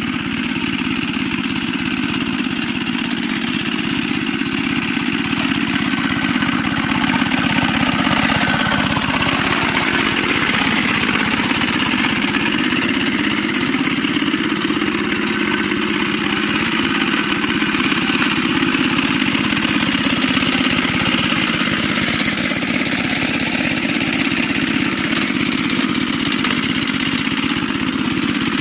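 A two-wheel walking tractor's single-cylinder diesel engine runs steadily under load with a fast, even firing beat as it drags cage wheels and a harrow through paddy mud. It gets a little louder after the first several seconds.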